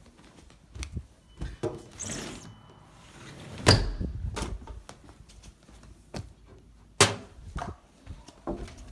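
Scattered clicks and knocks of objects being handled, with two sharp knocks, one a little under halfway through and one about three-quarters of the way in. A faint, thin high tone sounds briefly about a second and a half in.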